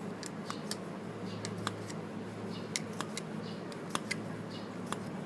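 Irregular light clicks and taps from the motorcycle front brake master cylinder being worked by hand in a test, over a steady low hum.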